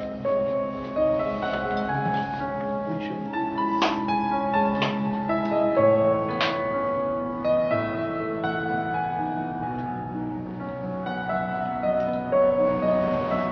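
Background piano music.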